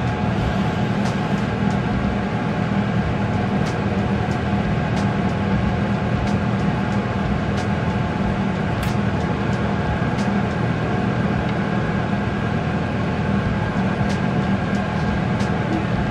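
A machine running steadily with a low drone, with faint clicks every second or two.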